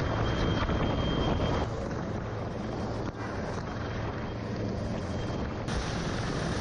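Helicopter rotor and engine noise, with wind buffeting the microphone at the open cabin door during a winch rescue. It is a steady noise with a low hum, and it changes slightly at two edits, one about 2 s in and one near the end.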